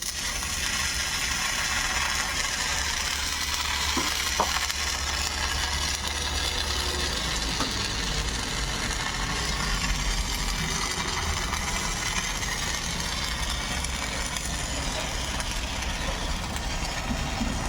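Excavator engine running steadily, with a constant low rumble and hiss, and two short squeaks about four seconds in.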